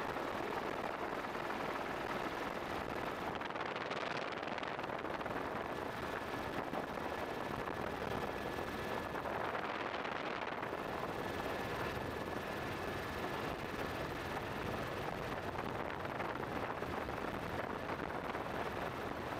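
Helicopter in flight: a steady, even rushing noise with a faint steady high whine running through it.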